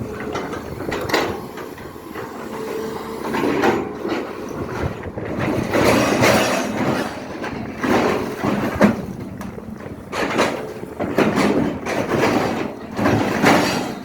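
SANY excavator working, its engine and hydraulics surging irregularly every second or two as it digs.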